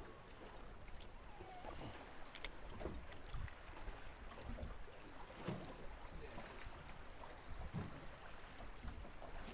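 Choppy water lapping and slapping against the hull of a small fishing boat in short, irregular splashes, over a low wind rumble on the microphone.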